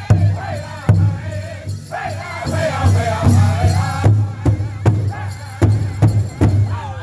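Powwow drum group singing an intertribal song: several voices in unison over the steady beat of a big hand drum struck together.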